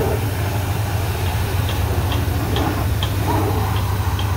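Pressure washer spraying a car's wheel: a steady low machine hum under the hiss of the water jet. Light ticks come about twice a second from about a second in.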